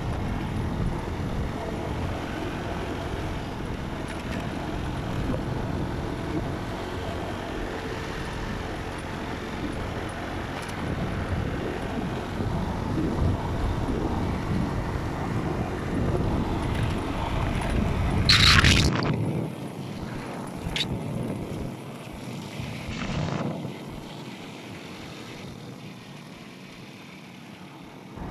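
A motor vehicle driving along a road, with a steady engine and road rumble and wind buffeting the microphone. A brief, loud high-pitched hiss comes about two-thirds of the way through. After it the low rumble drops away and the sound grows quieter.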